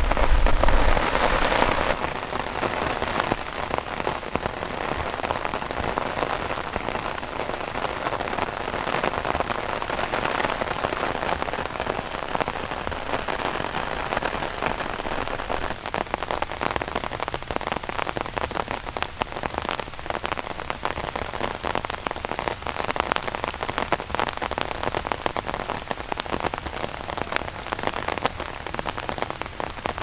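Steady rain falling on leaves: a dense patter of drops, with a low rumble in the first couple of seconds.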